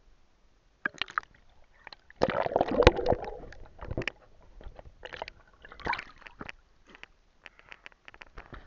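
Water sloshing, gurgling and splashing around a cheap action camera as it is dipped into a river and brought back up. The loudest churning burst comes about two seconds in, followed by smaller splashes and scattered sharp clicks.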